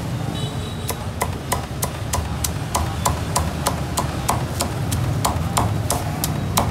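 A cleaver chopping roast pork with crackling skin on a round wooden chopping block, in steady strokes about three a second.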